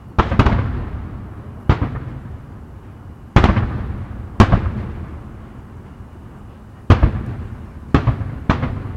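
Aerial firework shells bursting: about seven loud booms at irregular intervals, each followed by a fading rumble.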